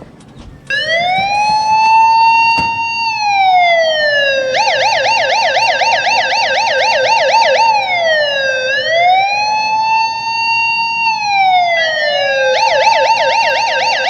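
Electronic police siren, starting about a second in with a slow rising and falling wail, then switching to a fast yelp, back to the wail, and to the yelp again near the end.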